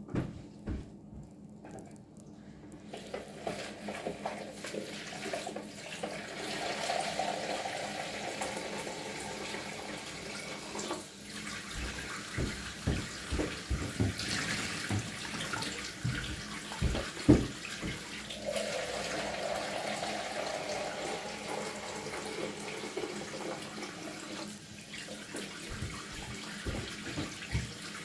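Water running into a plastic washing-up bowl, a steady splashing that sets in a few seconds in as the bowl fills. A few sharp knocks and splashes come in the middle, from a hand moving in the water.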